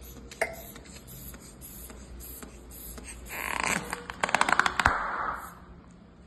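A long, open-mouthed breath out ("haaa"), starting about three seconds in and fading about two and a half seconds later. Partway through it comes a rapid run of clicks ending in one sharper crack, from the joints being worked in the chiropractic adjustment.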